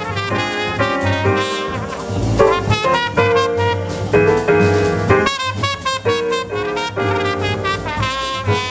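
Live small-group jazz: a trumpet plays the lead melody over piano, walking double bass and drum kit.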